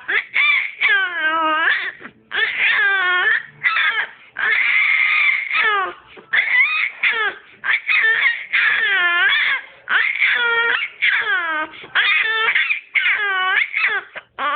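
Baby vocalizing loudly in a string of wailing, cry-like calls, roughly one a second, each bending up and down in pitch, as he makes noise as if trying to talk.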